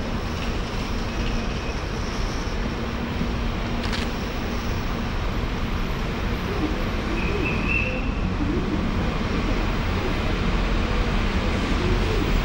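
DR2800 diesel multiple unit approaching along an underground platform, its low rumble building steadily toward the end over the station's steady background hum.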